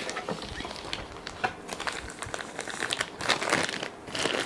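Crinkling and rustling of the white protective wrap around a compact camera as it is lifted out of its cardboard box and handled, with scattered small clicks. Louder for a moment about three seconds in.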